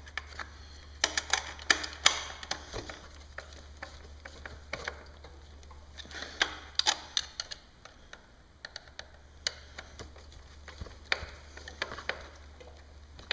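Irregular metallic clicks and taps of a 3/8 wrench fitting onto and turning screws to tighten them, some clicks coming in quick little runs.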